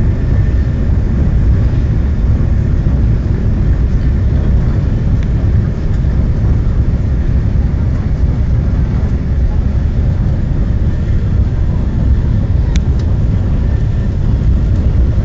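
Inside a TGV Atlantique high-speed train running at speed: a steady low rumble of wheels on rail and air rushing past the coach. One short click about 13 seconds in.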